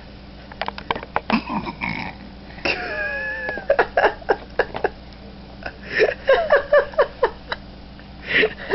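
Four-month-old baby burping, among a string of short mouth clicks and small sounds from the baby.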